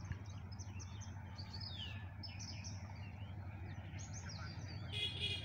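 Small birds chirping and twittering throughout, many short calls sweeping downward in pitch, over a steady low hum; a louder call stands out near the end.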